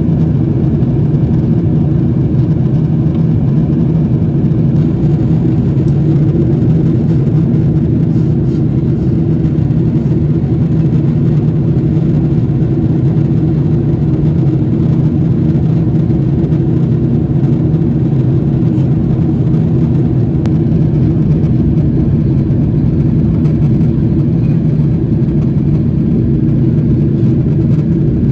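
Steady drone inside the cabin of a Boeing 777-300ER airliner in flight, the sound of its engines and the rushing air. Constant and unbroken, heaviest in the low range.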